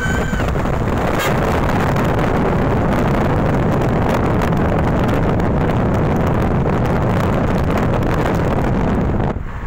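Wind buffeting a phone microphone held out of a moving car's window, mixed with road and traffic noise as trucks pass close by. The noise is loud and steady and cuts off suddenly near the end.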